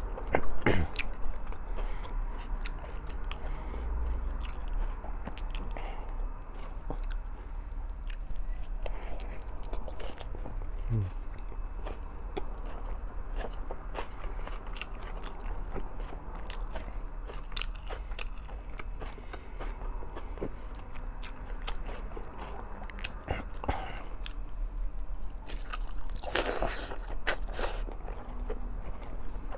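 Close-miked chewing and biting of a mouthful of corned beef, fried eggplant and rice, with small wet mouth sounds and utensil clicks, over a steady low hum. About three to four seconds before the end comes a louder burst of noise.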